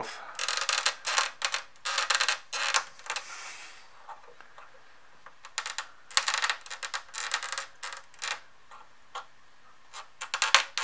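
Small screwdriver tips clicking and scraping against a stuck DIP chip (the Amiga's Denise chip) and its socket as it is pried up and rocked back and forth. Two runs of rapid clicks with a pause of a couple of seconds between them, then a few more clicks near the end.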